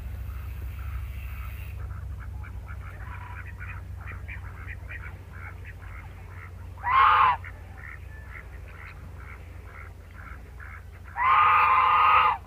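A domestic goose close by gives two loud honks, a short one midway and a longer one near the end, while softer, rapid duck-like calls carry on in the background over a steady low rumble.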